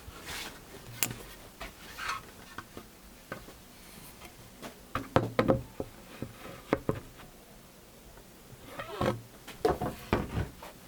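Wooden boards being handled on a workbench: scattered knocks, taps and rubs of wood against wood, in two busier clusters in the middle and near the end.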